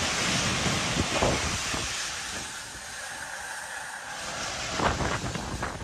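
Demolition of a damaged concrete building: a dense rushing rumble of falling rubble and dust, with heavier crashes about a second in and again near the end.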